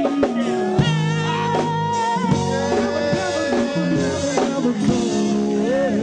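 Loud music with a singing voice over instruments.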